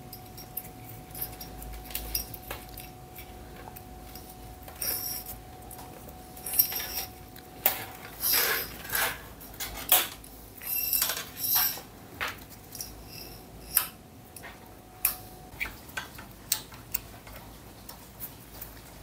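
Scattered small clicks, taps and rustles of a metal quick-action throttle housing and its steel throttle wire being handled and threaded by gloved hands. A faint steady hum runs underneath and stops about four seconds before the end.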